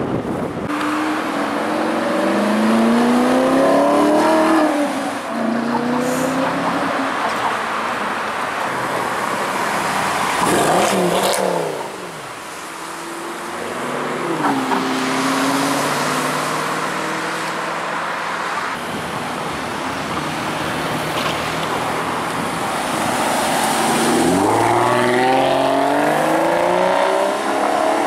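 Cars driving past on a road, engines accelerating with the pitch rising in steps through the gears. One car passes close about ten seconds in, its engine note falling as it goes by. The loudest pull comes near the end.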